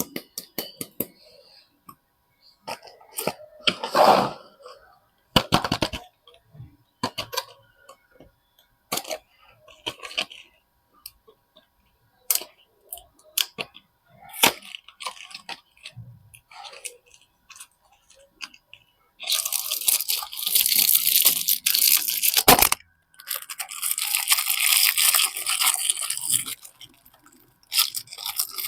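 Soap packaging being handled and opened by hand: scattered crinkles and clicks, then two long spells of dense wrapper crinkling and tearing near the end, split by one loud click.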